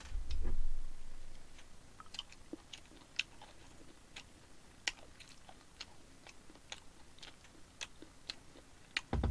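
Close-miked chewing of braised chicken, with scattered small wet mouth clicks. A low bump sounds in the first second and again near the end.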